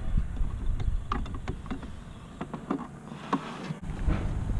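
Irregular light clicks and taps of a hand tool working the positive battery terminal clamp loose, over a low background rumble.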